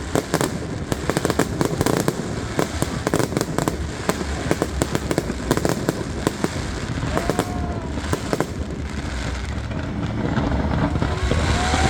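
Fireworks display going off: a rapid crackle of many small bangs, thinning out about eight and a half seconds in, while a steady rush of noise grows louder near the end.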